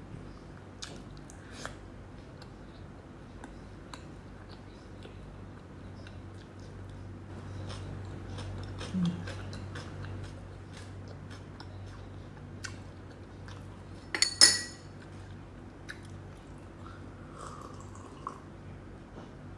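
A person chewing food close to the microphone, with many small wet mouth clicks and smacks. A brief louder sound comes about three-quarters of the way through, and there are soft gulps of a drink near the end.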